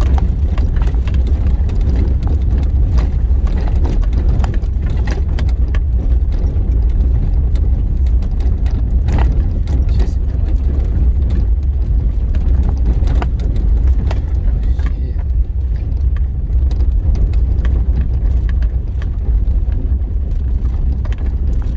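A 4x4 vehicle driving over a rough dirt road, heard from inside the cab: a steady low rumble with frequent rattles and knocks as it goes over bumps.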